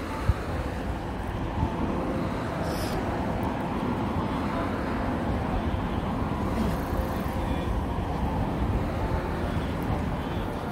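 Wind buffeting the microphone outdoors: a steady low rumble with a fainter hiss above it.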